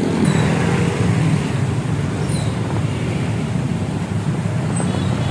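Street traffic on a wet road: motorbikes and cars going by with engines running steadily and tyres hissing on the wet tarmac.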